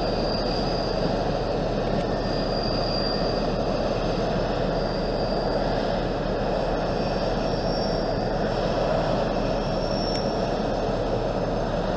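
Class 158 Express Sprinter diesel multiple unit pulling away round a curve: a steady run of engine and rail noise, with thin high-pitched wheel squeals coming and going about five times.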